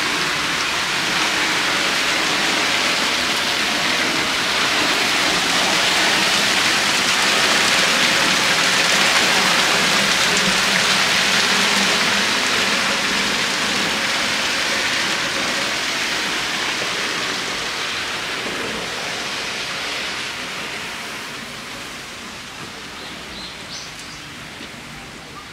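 Spouting hot spring jetting steam and boiling water from its well tower, a loud steady rushing hiss with water splashing. It grows fainter over the last several seconds.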